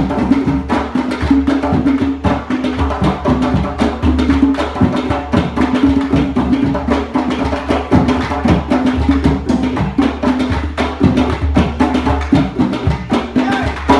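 Percussion music: a quick, even run of sharp clicking strokes over steady low pitched notes.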